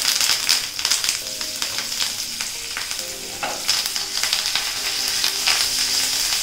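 Curry leaves frying in hot olive oil in a frying pan: a steady sizzle dotted with many sharp crackles. Near the end the pan is tossed, turning the leaves in the oil.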